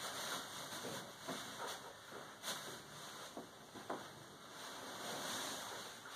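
Soft rustling and a few light bumps as a small child clambers over a fabric sofa with a large stuffed bear.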